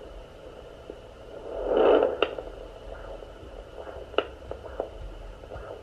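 Staticky hiss from a fetal heartbeat monitor's speaker as it searches over the belly, with a louder whoosh of noise about two seconds in and two sharp clicks; no steady heartbeat rhythm comes through.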